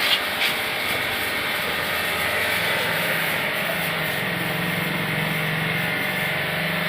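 Pressure washer running steadily, its motor hum under the hiss of the water jet spraying the motorcycle.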